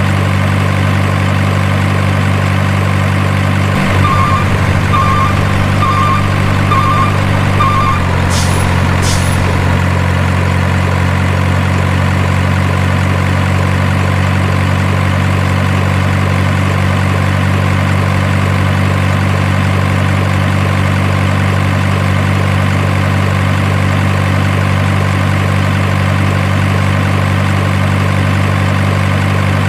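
Heavy diesel truck engine sound idling steadily. About four seconds in, five reversing beeps sound over it, then two short hisses like an air-brake release.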